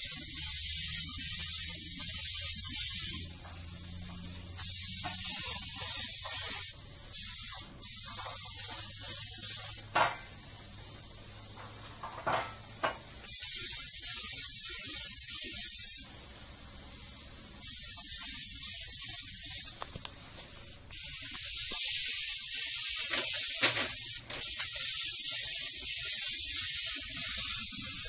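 Air paint spray gun hissing in repeated bursts as the trigger is pulled and released, spraying paint, with pauses of one to three seconds between the bursts.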